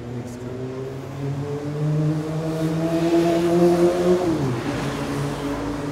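A motor vehicle's engine accelerating on a city street, its pitch rising steadily and growing louder, then dropping sharply a little over four seconds in.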